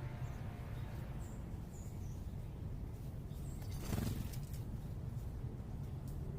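Several short, high bird chips over a steady low background rumble of urban noise, with a brief rushing burst about four seconds in.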